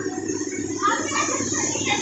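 Steady machine hum with a fast flutter from the human washing machine spinning ride running, with faint scattered voices behind it.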